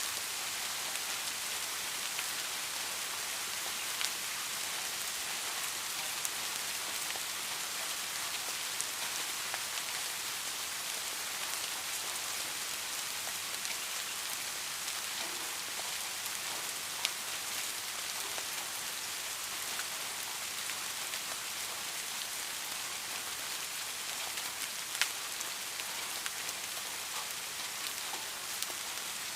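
Steady rain falling, an even hiss with occasional louder individual drops striking close by, two sharper ones about 17 and 25 seconds in.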